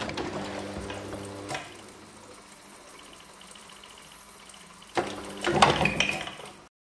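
Collection-box automaton working: its mechanism hums steadily and clicks as the carved figures move and their eyes light, with sharp clicks about a second and a half in and again about five seconds in, and a louder clattering stretch near the end.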